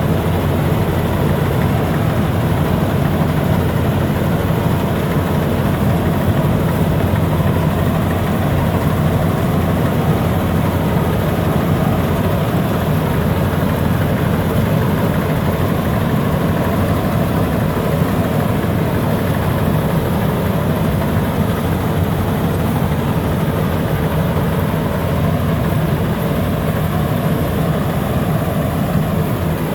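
Bimo Maxxi rice combine harvester running steadily, its engine holding an even, unchanging hum.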